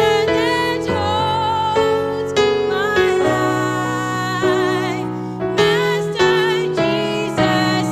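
Slow gospel music: piano or keyboard chords changing every second or so under a held melody line with a wavering vibrato.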